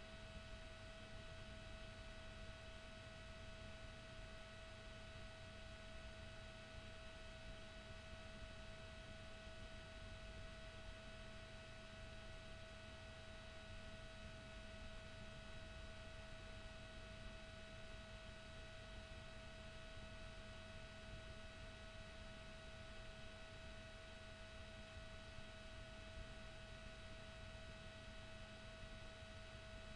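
Near silence: faint steady hiss with one constant high whine tone and no other events.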